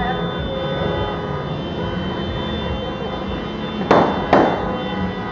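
Two loud firecracker bangs, about half a second apart, nearly four seconds in. They sound over a steady background din that holds several sustained horn-like tones.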